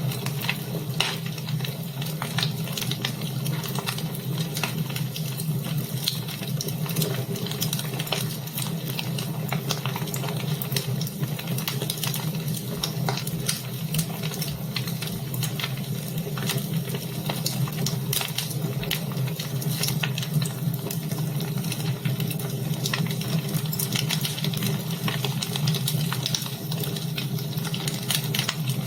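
Wood fire burning in a fireplace: a steady hiss with dense, irregular crackles and pops throughout.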